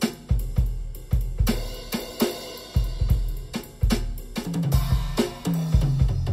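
Background music: a drum-kit beat of kick drum, snare and cymbals, with a bass line coming in about two-thirds of the way through.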